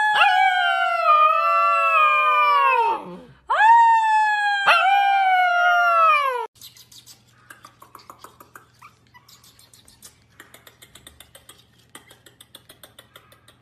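Husky puppy howling: two long, high howls of about three seconds each, both sliding down in pitch, cut off abruptly about six and a half seconds in. Faint rapid ticking and scratching follows.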